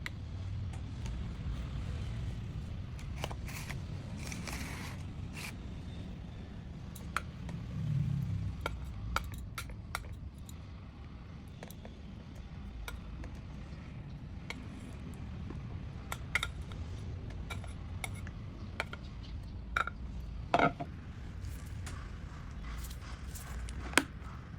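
Kitchen utensils and dishes clinking and scraping while fruit is prepared: scattered light taps and clicks, with a few sharper knocks near the end, over a low steady hum.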